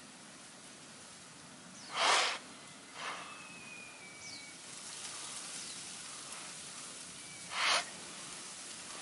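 Quiet outdoor ambience with a steady faint hiss and a few faint, short, downward-sliding bird chirps. Two short, loud rushes of hissing noise break in, one about two seconds in and one near the end.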